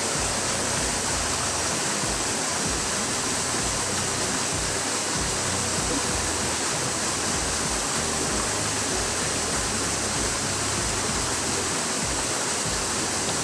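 Freshwater stream water rushing, a steady even hiss.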